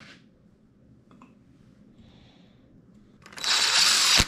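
Cordless impact driver hammering on a nut for about a second near the end, after a quiet stretch with a few faint clicks.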